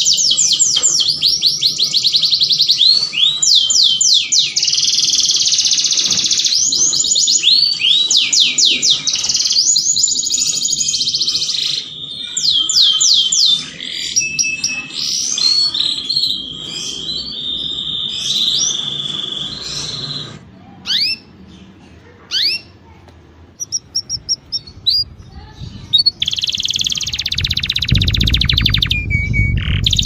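Domestic canary singing a long, fast song of rolling trills and rapidly repeated sweeping notes. About two-thirds of the way through the song breaks into scattered single chirps, then a loud trill comes back near the end over a low rumble.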